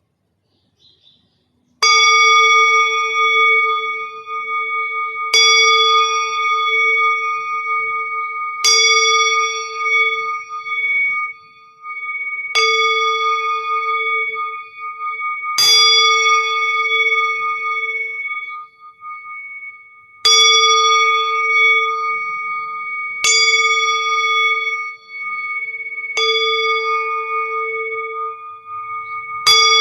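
A singing bowl struck again and again, about every three to four seconds, nine strikes in all. Each strike rings on with a wavering, pulsing tone into the next.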